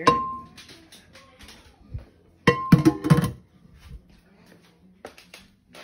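Hard objects knocked and set down in a kitchen sink: a sharp clunk with a short ringing tone at the start, then a quick run of clatters and clinks with ringing about two and a half seconds in.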